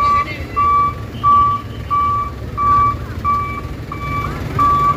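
Truck reversing alarm beeping at an even pace, about one and a half beeps a second, over the low rumble of the truck's engine.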